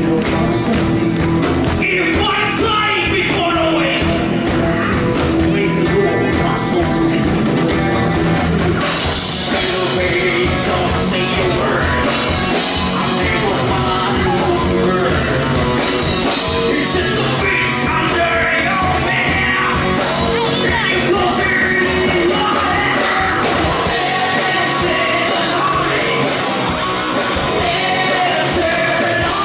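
Live rock band playing: drums, electric bass and guitar, with vocalists singing and shouting into microphones. The sound fills out with more cymbal and high-end about nine seconds in.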